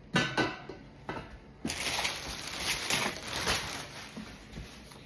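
Handling noise while unpacking a stockpot: a few knocks, then about two seconds of crinkling, rustling packaging that fades out.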